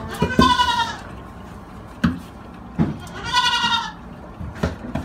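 Goat kid bleating twice, each call about two-thirds of a second long with a wavering pitch, with two short knocks in between.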